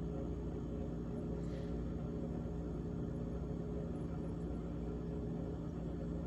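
GE GTH18XCTZRBB refrigerator running with its evaporator fan, a steady hum of several held tones over a low drone. This fridge has a rattle from the evaporator fan.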